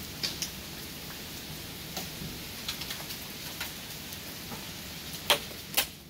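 Steady rain falling, with scattered sharp taps of drops landing close by and two louder taps near the end.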